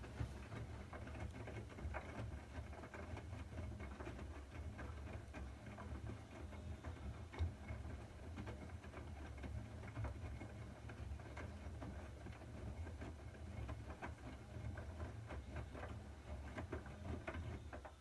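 Siemens IQ300 WM14N190 front-loading washing machine in its wash cycle: the drum turning wet laundry through the water, with splashing and sloshing over a steady low rumble from the drum drive.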